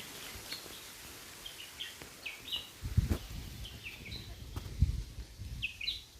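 Short high chirps from small animals calling repeatedly in the background, over a faint steady hiss, with a couple of dull low thumps around the middle.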